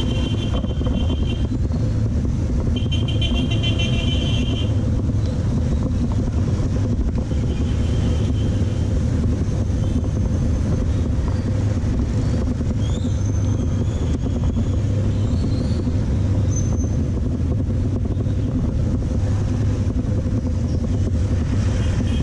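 Dense motorbike street traffic heard from a moving bike: a steady rumble of engines and road noise, with horns beeping a few times. There are two longer beeps in the first five seconds and a shorter one about eight seconds in.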